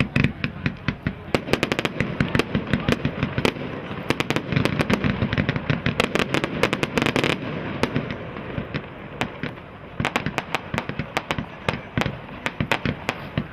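Fireworks going off in a dense barrage of rapid crackling bangs. The barrage eases briefly about two-thirds of the way through, then crackles on.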